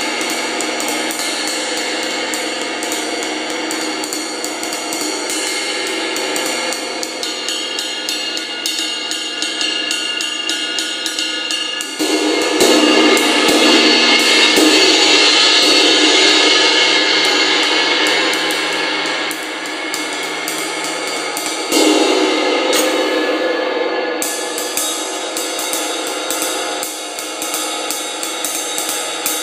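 1960s 24-inch Avedis Zildjian ride cymbal played with a wooden drumstick: a steady run of stick strokes over a sustained shimmering wash. The cymbal swells louder when struck harder, about twelve seconds in and again about twenty-two seconds in.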